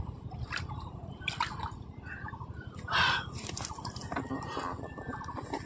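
Water dripping and splashing in scattered small sounds over a steady low rumble, with one louder splash about three seconds in.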